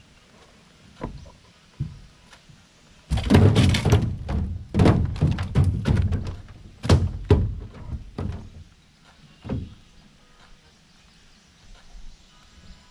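Hollow knocks and thunks on an aluminium jon boat's deck and hull: a few scattered knocks, then a dense flurry of heavy thuds about three seconds in lasting several seconds, then a few more spaced knocks.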